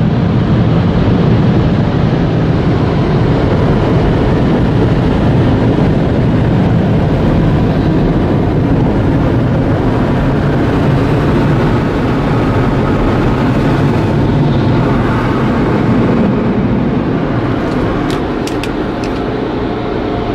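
Automatic car wash dryer blowers running, a loud, steady rush of air heard from inside the car's cabin. The noise eases slightly near the end, with a few sharp clicks.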